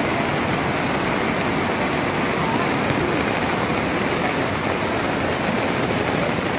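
Steady rushing of muddy floodwater from a river in spate after a cloudburst.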